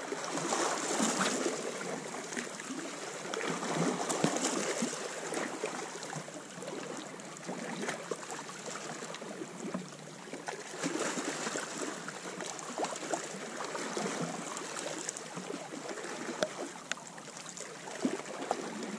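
Sea water lapping and washing against the rocks, swelling and easing every few seconds.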